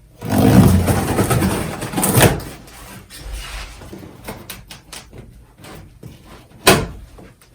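Cardboard shipping box being opened, its packing tape pulled off: a loud tearing noise for about two seconds, then quieter scraping and rustling of cardboard, and one short sharp tear near the end.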